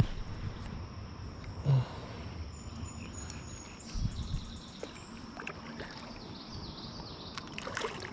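Water moving and splashing around a kayak, with a couple of short, light knocks on the hull about two and four seconds in.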